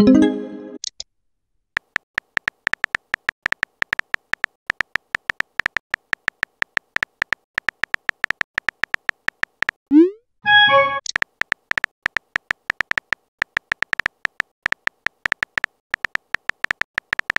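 Phone chat-app sound effects: a rapid, uneven string of short beep-like typing clicks as a message is keyed in, broken twice by a message-sent sound, a short rising swoop and a brief chime, at the start and about ten seconds in.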